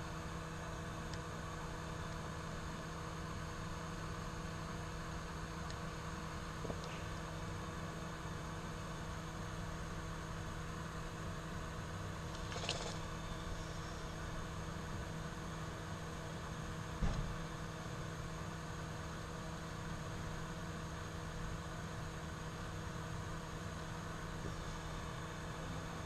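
Steady electrical hum with a low fan whir from the electronics bench equipment. Three faint clicks and taps of small tools on the circuit board come about a third of the way in, near the middle, and about two-thirds of the way in.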